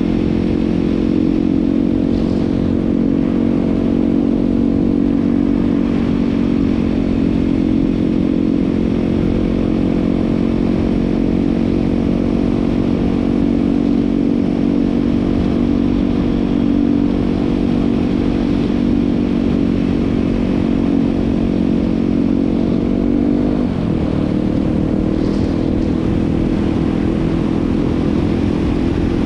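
Yamaha WR250R's single-cylinder four-stroke engine running steadily as the bike cruises on a snowy road. About three-quarters of the way through, the engine note dips sharply and picks up again.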